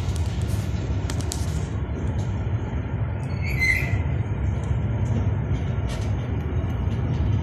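Freight train of Facns hopper wagons rolling slowly past at close range as it slows to a stop: a steady low rumble of wheels on rail with scattered clicks, and a brief high squeal about three and a half seconds in.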